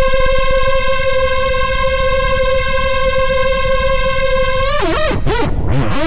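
Pure Data hoover synth: a dense cluster of detuned sawtooth oscillators, soft-clip distorted and run through freeverb reverb, holding one steady buzzy note. Near the end its pitch swoops down and back up and settles on a lower note.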